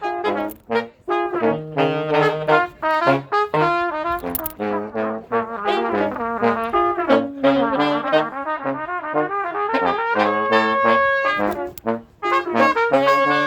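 Small brass band jamming: trumpets and trombones playing short, punchy phrases over a bass line of low notes.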